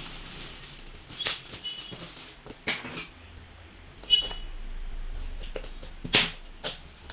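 Packaging of a spare GoPro battery being handled and opened: a handful of sharp clicks and crinkles spread out over a few seconds.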